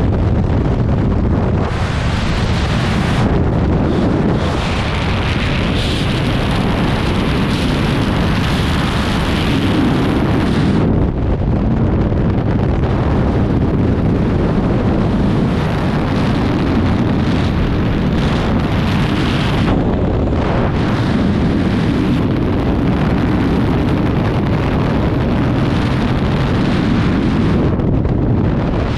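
Freefall airflow rushing over a skydiver's helmet-mounted camera microphone: loud, steady wind noise whose hiss thins for a moment now and then as the body position shifts.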